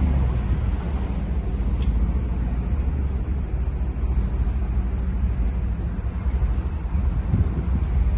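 Double-decker bus driving along, heard from its open top deck: a steady low rumble of engine and road noise.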